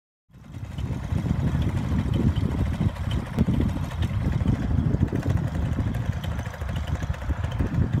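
Strong wind buffeting the microphone: an uneven, gusty low rumble that starts just after the beginning.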